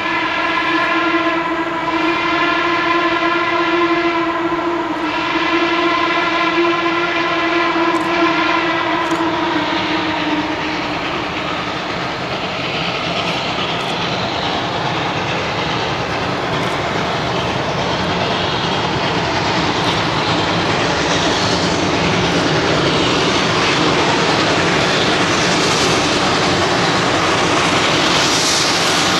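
Steam locomotive whistle sounded in one long blast of about ten seconds, dipping briefly twice near the start. It is followed by the locomotive getting under way: a steady hiss of steam and exhaust that grows a little louder as it comes closer.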